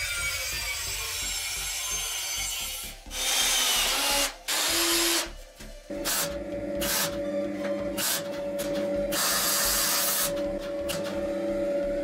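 Angle grinder cutting a steel flat bar, a steady whine with a hiss of grinding. About six seconds in, a MIG welder takes over, its arc crackling in short bursts as tack welds are laid, over a steady hum.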